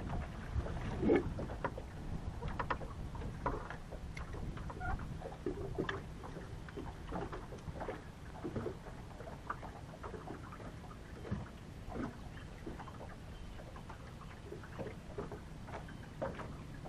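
Small waves lapping and slapping against a fishing boat's hull, with irregular light taps and splashes. A faint low steady hum gets stronger near the end.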